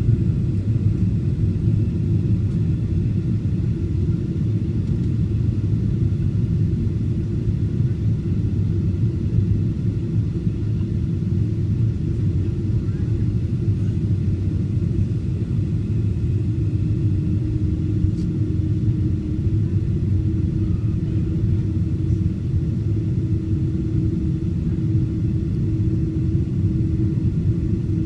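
Airliner cabin noise on approach to landing: a steady low rumble of the engines and the airflow past the fuselage. A faint steady hum joins about halfway through.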